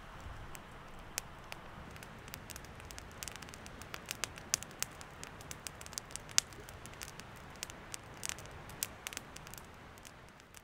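Irregular sharp crackles and pops over a steady low hiss, tapering off near the end.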